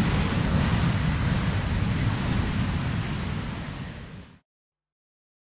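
Twin-engine jet airliner taking off: a steady rush of engine noise with a deep rumble. It fades from about three seconds in and cuts off to silence just after four seconds.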